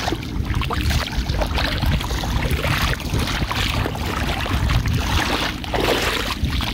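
Wind buffeting the microphone: an uneven low rumble under a steady rushing hiss, mixed with the sound of moving river water.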